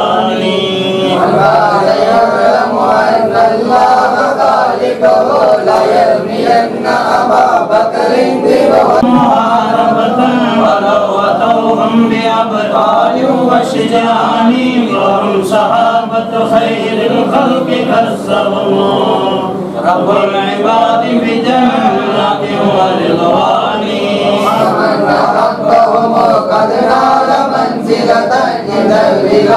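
A group of men chanting devotional verses together, unaccompanied, the voices running on without a break.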